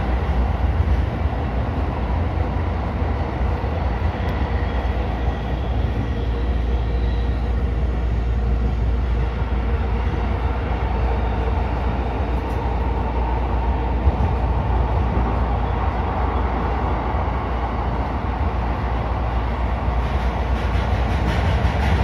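Tokyo Metro 16000-series electric subway train running through a tunnel, heard from the driver's cab: a steady rumble of wheels on rail, heaviest in the bass. There is one small knock about two-thirds of the way through.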